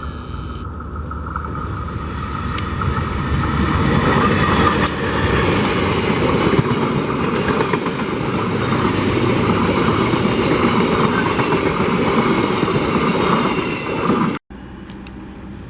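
A train passing close by on the rails, growing louder over the first few seconds and staying loud. It cuts off suddenly near the end, leaving a quieter steady rumble.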